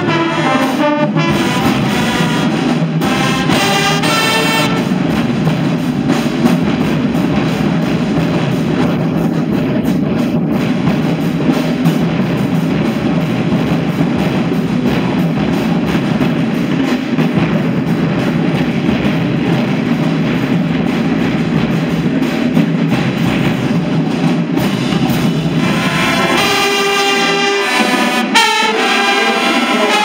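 High school marching band brass (trumpets, trombones and sousaphones) playing loudly in a gymnasium. The close horns drop out a few seconds in, leaving a dense, blurred wash of band sound, and come back in with clear, punchy notes near the end.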